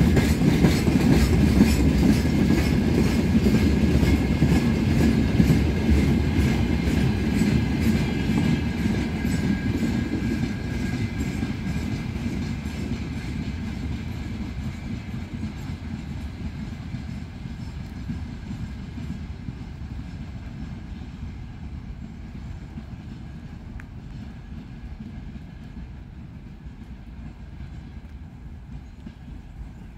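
Freight train's rail tank wagons rolling past on steel wheels, with a regular clickety-clack over the rail joints, fading steadily as the end of the train moves away.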